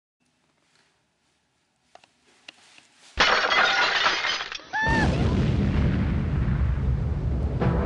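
Near silence, then a sudden loud crash about three seconds in, followed by a short high gliding tone and a loud, low, steady rumble of dramatic sound effects.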